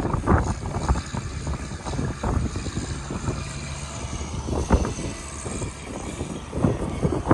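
City street traffic: a motor vehicle's engine running with a steady low hum, over a noisy rumble with scattered knocks.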